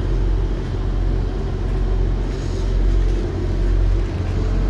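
Class 158 diesel multiple unit's underfloor diesel engine idling with a steady low rumble while the train stands at the platform, doors open. A brief faint hiss comes a little over halfway through.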